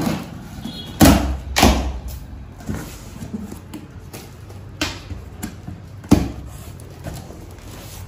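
Cardboard shipping box being opened: packing tape cut with scissors and stiff cardboard flaps pulled open, with loud sudden rustles about a second in, again half a second later, and once more near the end, and smaller scrapes between.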